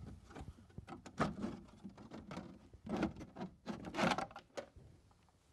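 Irregular knocks, scrapes and rattles as the pebble beach shelf is lifted out of the water feature's tray. The loudest clatter comes about four seconds in, and it dies away near the end.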